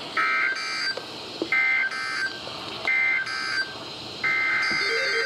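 Emergency Alert System SAME data bursts from NOAA Weather Radio: harsh two-tone digital screeches, three short bursts about a second apart and a fourth starting near the end. These are the coded signals that frame a broadcast weather warning, coming just after the spoken severe thunderstorm warning ends.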